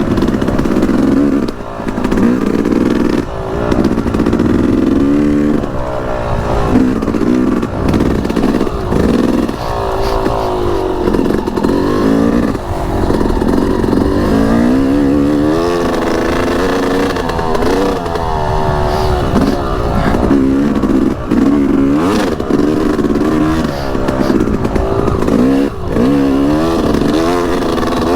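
Yamaha YZ250X single-cylinder two-stroke engine revving up and down over and over as the bike is ridden over a trail, its pitch climbing and dropping every second or two, with occasional short knocks.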